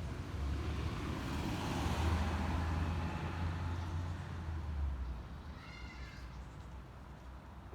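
A passing vehicle's low rumble swells and fades, dying out about five seconds in; near six seconds comes one short, pitched animal call.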